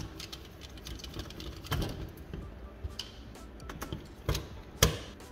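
Light clicks and taps of the metal backplate, heatsink and screws of a Dell RTX 3080 graphics card being handled during disassembly, with sharper knocks about two seconds in and twice near the end.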